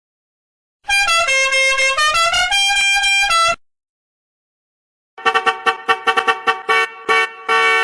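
A musical vehicle horn plays a short tune of changing notes for about three seconds. After a pause, a car horn is honked over and over in quick short toots on one steady pitch.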